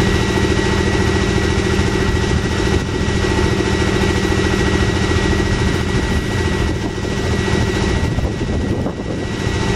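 An engine idling steadily, with a thin steady high whine over its low hum.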